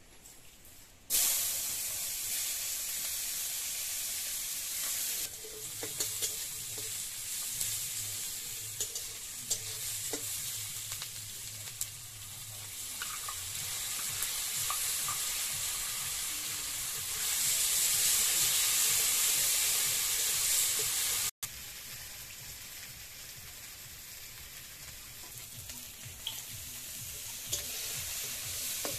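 Food sizzling as it fries in hot oil in a pan, with the scrape and clicks of stirring. The sizzle starts suddenly about a second in, grows louder later on, cuts out for an instant about two-thirds through and then goes on more quietly.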